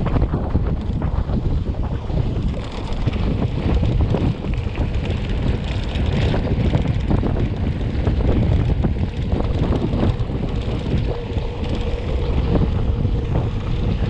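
Wind buffeting the microphone of a camera riding on a moving mountain bike, over the bike's rumble and rattle on a dirt road.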